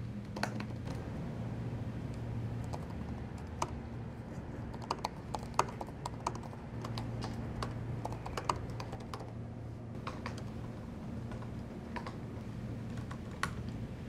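Typing on a MacBook laptop keyboard: quick, irregular keystroke clicks, some taps sharper than others, over a steady low hum.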